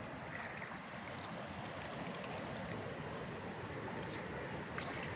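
Sea surf washing on a beach: a steady, even rushing noise that swells slightly toward the end.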